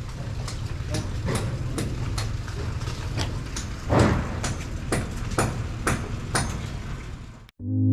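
Regular knocking, about two to three knocks a second, over a steady low rumble, cutting off abruptly near the end.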